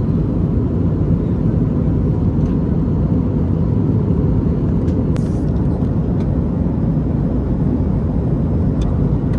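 Steady drone of an airliner's cabin in flight: jet engine and rushing airflow noise, with a faint steady hum and a couple of small clicks.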